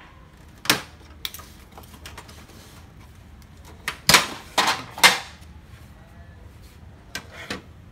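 Plastic side cover of an HP LaserJet M135a printer being pried off its frame: sharp plastic snaps and clacks as the clips let go, one early, a loud cluster about four to five seconds in, and two lighter ones near the end.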